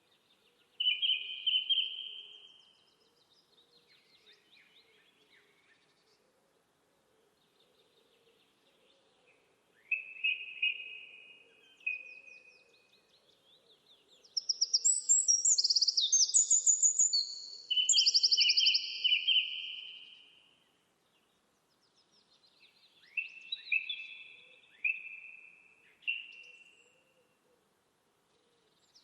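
Small songbirds singing in short bouts of chirping, trilling phrases with pauses between them, the busiest and loudest stretch in the middle.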